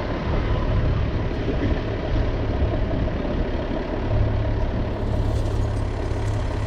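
Heavy diesel engine idling steadily, a low hum that grows a little heavier about four seconds in.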